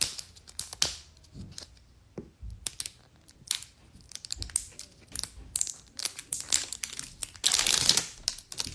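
Plastic wrapper on a toy mystery ball crinkling and crackling as it is picked at and torn open by its tear strip: scattered sharp crackles, then a loud burst of crinkling near the end.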